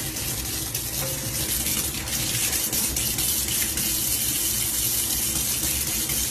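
Kitchen faucet running, a thin stream of water splashing steadily into a stainless steel sink.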